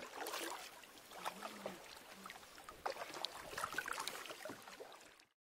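Wooden paddle blade dipping and pulling through river water beside a kayak, with irregular small splashes and drips from each stroke. The sound cuts off suddenly just before the end.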